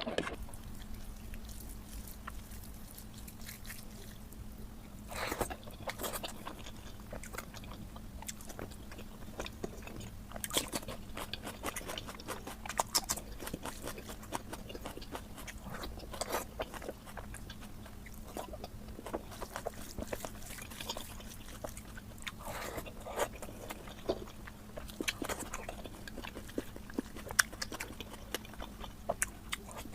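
Close-miked chewing and biting of oily mutton curry: a run of irregular wet smacks and clicks, over a steady low hum.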